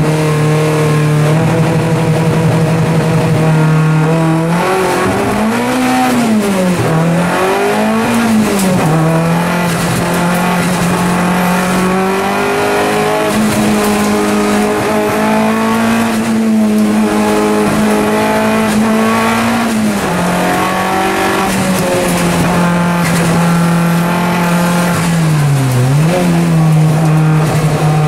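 Engine of a turbocharged Opel Calibra race car heard from inside the cockpit, held at high revs under hard acceleration. Its pitch dips and climbs back several times as the driver lifts and changes gear for the corners.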